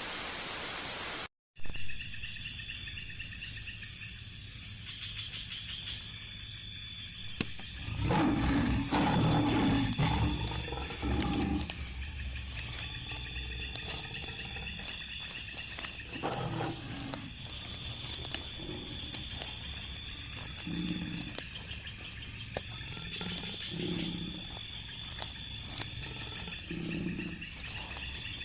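Tiger growling: a long, deep, rough roar about eight seconds in, lasting about four seconds, then a string of shorter low growls every couple of seconds. Night insects buzz steadily behind it, and a short burst of hiss at the very start is cut off abruptly.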